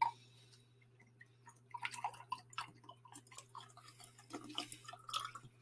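Canadian whisky being poured from a bottle into a glass: a faint run of small irregular glugs and drips that starts about a second and a half in. A steady low electrical hum sits under it.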